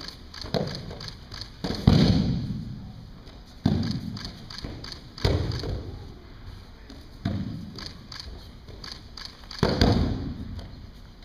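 Bodies of aikido partners hitting gym floor mats as they take falls from throws: about six heavy thuds a second or two apart, each echoing in the large hall. The loudest come about two seconds in and near the end.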